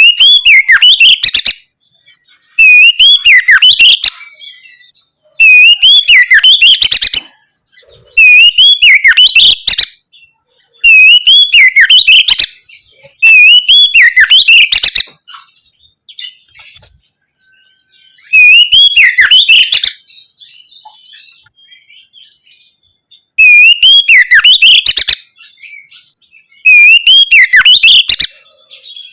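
Oriental magpie-robin (kacer) singing loud, repeated whistled phrases of about two seconds each, full of rising and falling notes, with short pauses between them and softer twittering in a longer pause midway.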